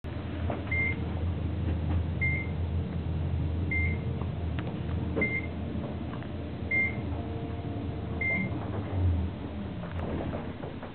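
Otis traction elevator cab riding with a steady low hum. A short high beep sounds six times, about every second and a half, the floor-passing signal as the car travels past each floor.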